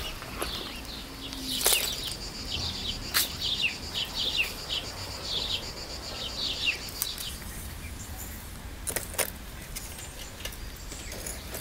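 A small songbird singing a quick run of short falling chirps, two or three a second, fading out a little past the middle. A few sharp knocks stand out, two of them close together near the end.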